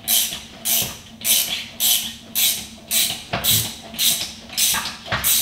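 Hand ratchet worked back and forth in short, even strokes to loosen a nut, its pawl rasping on each back-swing, about ten strokes at a little under two a second.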